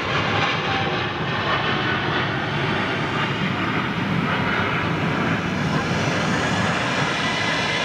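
Boeing 777 twin-jet airliner climbing out after takeoff, its engines at takeoff power making a steady, loud rushing noise with a faint whine running through it.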